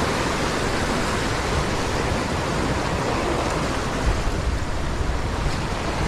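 Waves surging and washing over shoreline boulders: a steady rushing of surf.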